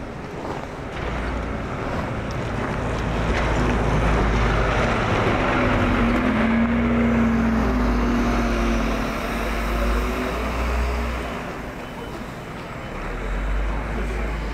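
A motor vehicle driving past, its engine hum rising and then falling away over several seconds, over a low rumble that swells and dips.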